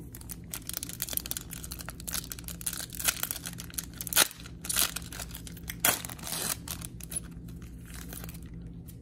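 Plastic foil trading-card pack wrapper being torn open and crinkled by hands in nitrile gloves: steady crackling with a few sharp, louder rips around the middle.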